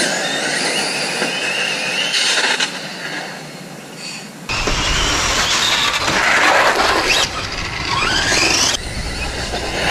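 Electric RC drag cars running flat out on asphalt, with the high whine of their 7-turn modified motors and tyre noise. After a sudden change at about 4.5 s, the cars pass close by with sweeping whines.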